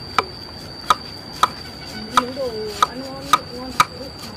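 Large knife chopping a lemongrass stalk on a wooden chopping board: seven sharp knocks of the blade on the board, about two a second and a little uneven.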